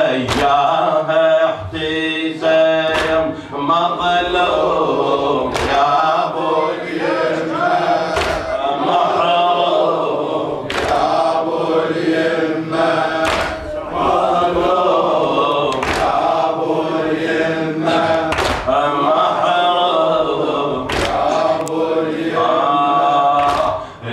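Men's voices chanting a Shia latmiya lament, with the mourners striking their chests together in time. The strikes are sharp slaps, one roughly every two and a half seconds.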